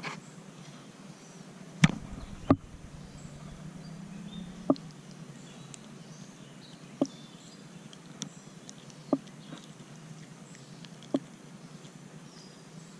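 Handling noise while a small caught fish is held and unhooked: about seven sharp taps and knocks, spaced irregularly, over a faint steady outdoor background.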